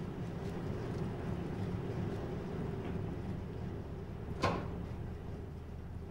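Steady low rumble or drone, with a single sharp knock of a door about four and a half seconds in.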